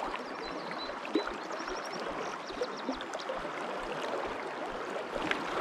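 River water rushing steadily over a shallow riffle.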